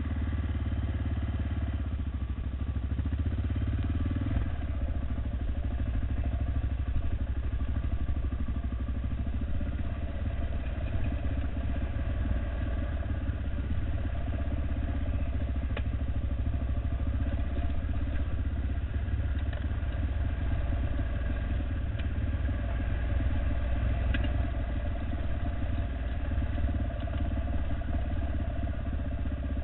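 Honda XR650R single-cylinder four-stroke dirt bike engine running at a steady pace while riding a rocky trail, with a few sharp clicks in the second half.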